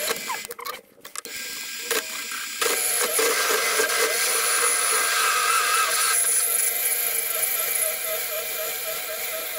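Chinese mini lathe running while a 16 mm drill bit is fed slowly into the spinning metal workpiece. There is a steady motor whine with a wavering cutting noise. It dips briefly about a second in, then grows louder about two and a half seconds in as the drill cuts and throws off long curls of swarf.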